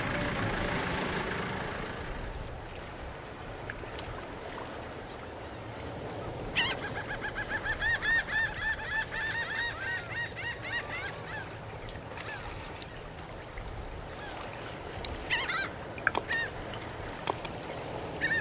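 Birds calling: a fast run of repeated arching calls starting about six seconds in and lasting several seconds, with a few more calls near the end, over steady background noise.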